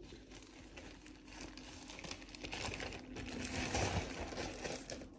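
Crinkling and rustling of a shirt and its packaging being handled and put away. The rustle grows louder a little past the middle.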